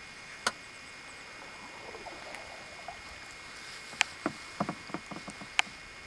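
Kayak paddling on calm water: sharp knocks of the paddle against the boat, once about half a second in, then a quick cluster of knocks and small splashes between about four and six seconds in.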